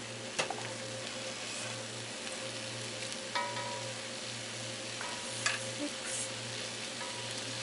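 Stir-fry of noodles and vegetables sizzling steadily in a hot wok as pre-cooked shrimp are set in, with a few light clicks that ring briefly, about half a second, three and a half and five and a half seconds in.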